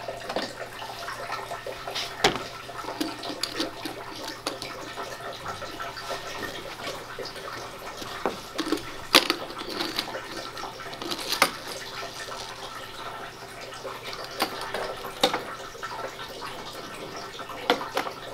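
Steady trickling and splashing of a water fountain, with scattered sharp clicks and knocks of plastic toy cars being handled on a plastic water table.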